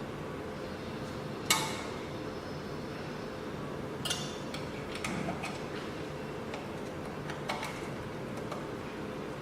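A few sharp metallic clicks and clinks from parts being handled on a CNC key cutting machine, the loudest about a second and a half in, over a steady background hum.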